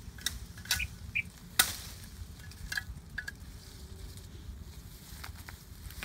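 Twigs and leaves of a bush cracking and rustling as a thin branch is pulled and broken off by hand: a scattering of sharp snaps, the loudest about a second and a half in.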